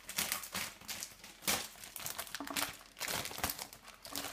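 Thin clear plastic bag crinkling in short, irregular rustles as a bagged plastic model-kit runner is picked up and handled.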